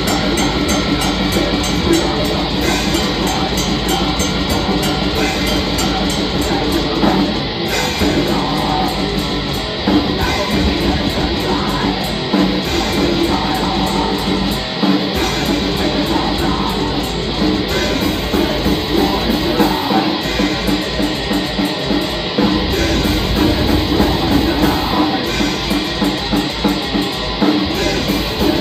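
Black metal band playing live: distorted electric guitars over a drum kit, loud and unbroken.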